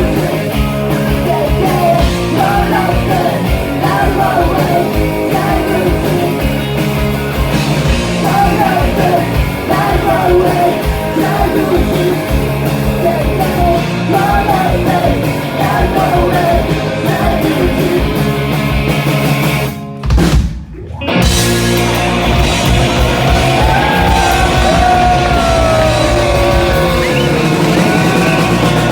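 Live rock-style band music with a singer's vocal melody over it. About two-thirds of the way through, the music stops dead for about a second, then comes back in, and near the end a long note slides downward.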